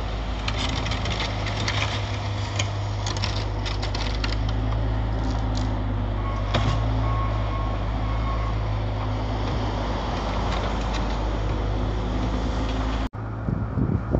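Compact loader's engine running steadily with a deep hum while it pushes snow with its front bucket, with scattered knocks and scrapes in the first few seconds. The sound breaks off sharply near the end.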